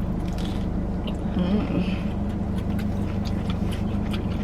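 Steady low hum of a car running while stationary, heard inside the cabin, with faint chewing of pizza over it.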